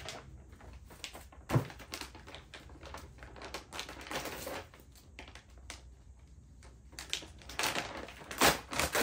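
Cactus soil being handled and poured into a pumpkin planter: scattered small clicks and rustles, a sharp thump about a second and a half in, and louder rustling near the end.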